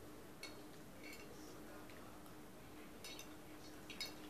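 Spoons clinking faintly against bowls of noodles as they are scooped and eaten, a few light clinks spread out, over a faint steady hum.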